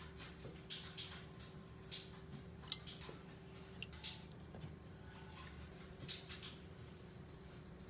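A silicone spatula stirring powder into water in a pot: a series of short, soft swishes and scrapes, with one sharp tick partway through.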